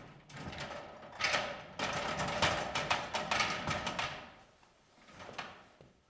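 Aluminium extension ladder clanking and rattling as it is stood up and shifted by hand, with a metallic ring. The clatter is busiest from about one to four seconds in and then dies down.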